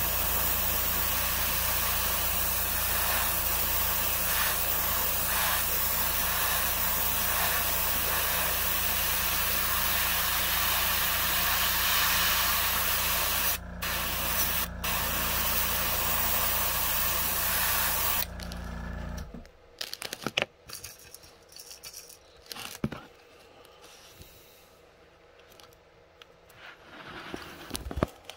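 Iwata Eclipse airbrush spraying paint in a steady hiss, with the low hum of its Master TC-40 compressor beneath. The spray breaks off twice briefly a little past the middle, then stops about two-thirds through; the hum cuts out a second later, leaving faint clicks and rubbing as the stencil and lure are handled.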